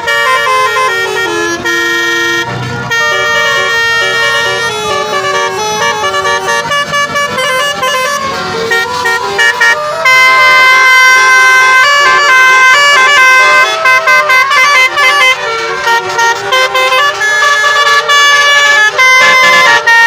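Basuri (telolet) musical air horn set playing a tune in loud, held horn notes that step from pitch to pitch, getting louder about halfway through and breaking into quick, choppy notes after that.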